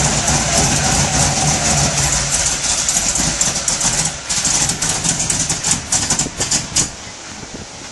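1970 Mercury Cougar XR7's 351 Cleveland V8 idling, then stumbling unevenly for a few seconds and stalling about seven seconds in. It dies because the choke was left on.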